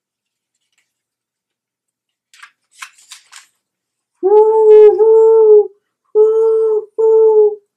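A woman's voice imitating the wind of a snowstorm with long, steady-pitched 'hoooo wooo' howls, two pairs starting about four seconds in. A few short soft hisses come just before.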